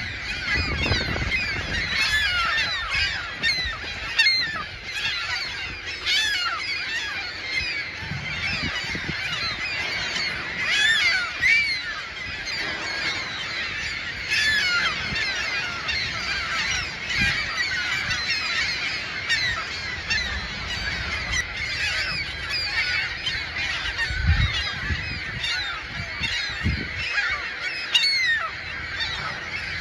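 A large gull colony screeching: many gulls calling over one another in a constant din of short, sliding cries, which rises and falls a little but never stops.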